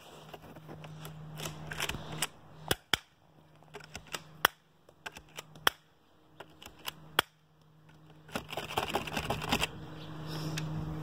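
Airsoft pistols snapping and clicking: about six sharp pops at irregular intervals, with fainter clicks between them.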